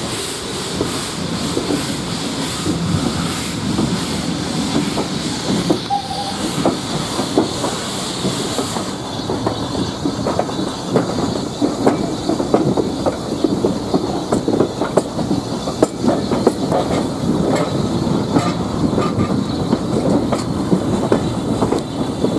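Steam train hauled by a BR Standard Class 4 2-6-4T tank locomotive moving off, heard from its carriages: coach wheels clattering on the rails with the locomotive working ahead. A hiss sits over the top and stops about nine seconds in.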